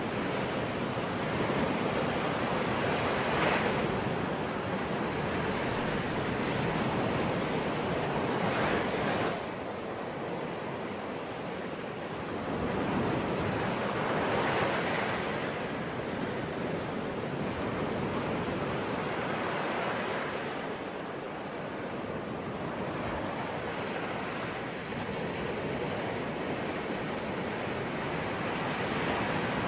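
Ocean waves breaking, the surf swelling and falling back in surges about every five to six seconds.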